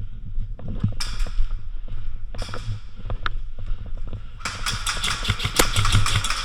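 Scuffing movement and gear rustle against a steady low rumble, with a dense run of sharp clicks lasting almost two seconds near the end.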